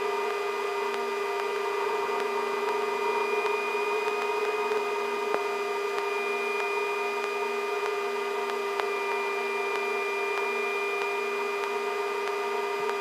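Steady in-flight cockpit noise of a Sikorsky S-64 Skycrane twin-turbine helicopter: a constant hum with fixed, high whine tones from the engines and drivetrain, not changing in pitch.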